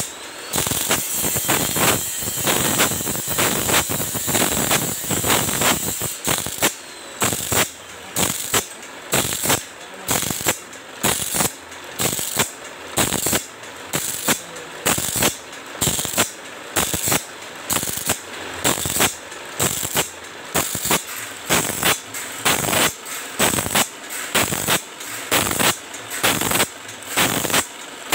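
Automatic bandsaw-blade sharpening machine grinding the teeth of a wide bandsaw blade. For the first six seconds or so the grinding runs almost without a break. After that it comes as a harsh burst about every three-quarters of a second, one for each tooth as the blade is stepped forward under the wheel.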